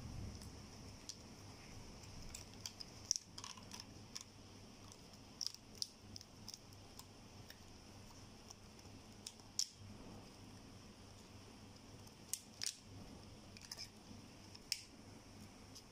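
Faint scattered clicks and taps of a plastic water bottle, rubber bands and plastic straws being handled on a table, over a low steady hiss.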